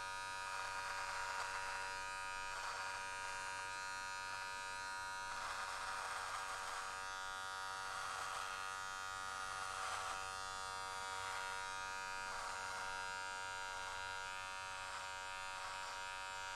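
Wahl Magic Clip cordless hair clipper running with a steady buzz, its sound roughening in repeated strokes as the blade cuts through beard hair along the jawline.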